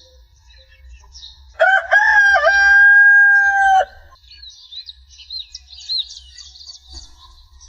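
A rooster crowing once: a single long crow of about two seconds, starting about one and a half seconds in, with small birds chirping around it.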